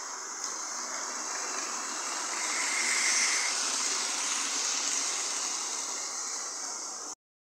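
Model railway train, a King class locomotive hauling a rake of coaches, running fast along the track past the microphone. Its motor and wheel noise grows to a peak about three seconds in and then fades as it moves away.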